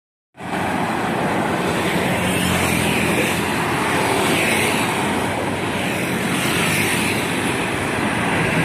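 Steady running noise of a heavy vehicle, a wide rushing sound with a low engine hum underneath, starting abruptly about half a second in.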